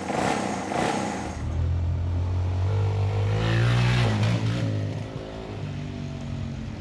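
Freshly rebuilt Yamaha XT225's single-cylinder four-stroke engine running. About three seconds in it revs up and drops back, then settles to a steady run.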